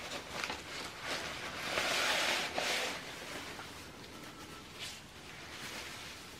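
Rustling of shredded paper packing filler being handled, in several short bursts, with the loudest and longest stretch about two seconds in.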